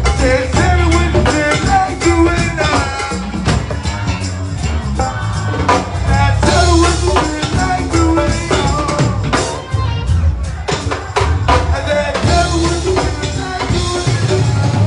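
Live go-go band playing: a drum kit and percussion over a heavy bass line, with singing on top.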